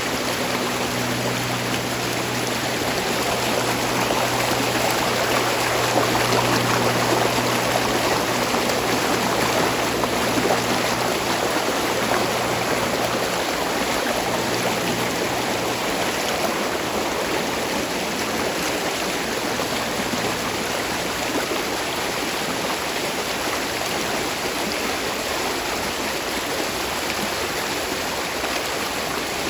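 Spring water running steadily over rocks: a continuous rushing of a small stream. For about the first half, a low steady hum sits underneath it.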